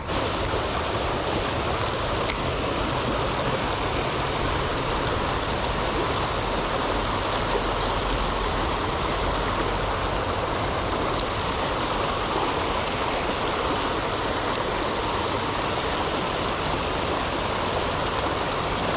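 Steady rushing flow of a small river's current, with a few faint ticks.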